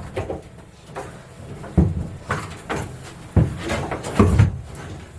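Irregular knocks and thumps, about six of them at uneven spacing, from a wooden interior side panel of an aluminium boat being worked loose and pulled out.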